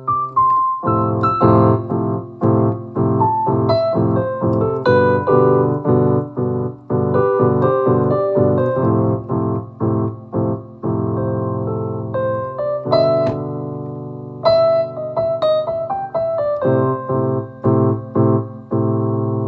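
Electronic keyboard with a piano voice, played freely by ear: chords struck in a steady rhythm with a melody line over them, settling into a long held chord near the end.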